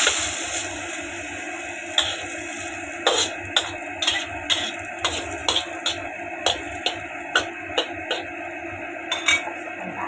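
A cooking utensil clicking, knocking and scraping against a pan in quick irregular strokes as rice vermicelli is stirred, over a steady hiss.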